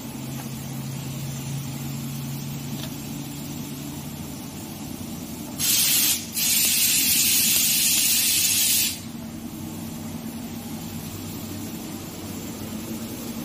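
Steady low machinery hum, broken about six seconds in by a loud, even hiss of pressurised gas or air that runs for about three seconds with one brief break.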